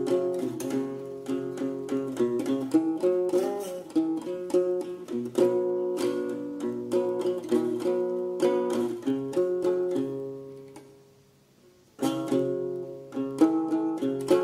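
Instrumental music of quick plucked string notes. Around ten seconds in it fades to near silence for about two seconds, then starts up again suddenly.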